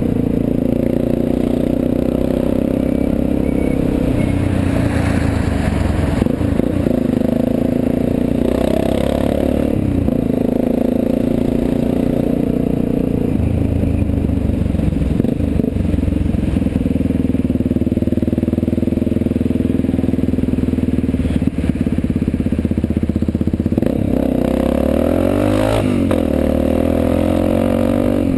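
Motorcycle engine running under way, heard from a camera on the bike, its pitch shifting up and down several times, with a quick rise and fall near the end. Wind and wet-road tyre noise run underneath.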